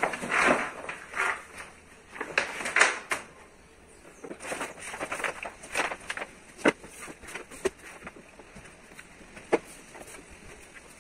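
Large sheet of carbon-fibre vinyl wrap film rustling and crinkling as it is handled and laid over a car roof. The crinkling is thick for the first three seconds, then thins to scattered crackles and ticks as the film is adjusted by hand.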